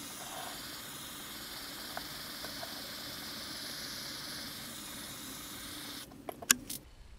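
Small handheld gas torch burning with a steady hiss as its flame scorches a wooden hatchet handle. The hiss cuts off about six seconds in, followed by a few sharp clicks.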